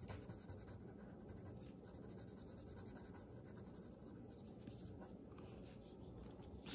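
Faint scratching of a pencil on paper as it draws and shades.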